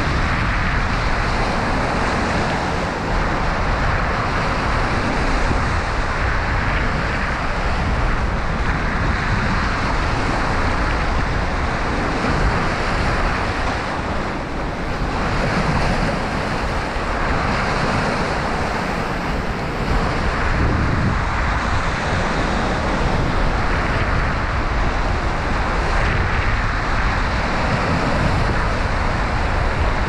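Sea waves breaking and foaming over a rocky shoreline: a continuous wash of surf that swells each time a wave comes in.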